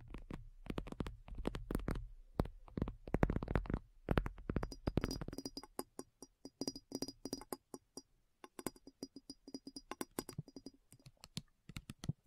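A rapid, irregular series of sharp clicks and taps, densest in the first four seconds and sparser after.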